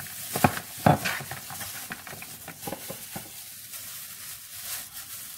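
Hands in disposable plastic gloves tossing cut grilled pork belly with onion and bell pepper in a plastic tray: crinkling of the gloves and wet, crackly rustling of the food. There are two sharper clicks about half a second and a second in.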